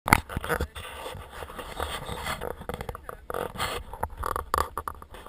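Forks scraping and tapping on a metal baking tray and a plate, among a string of knocks and rustles, with a sharp knock right at the start.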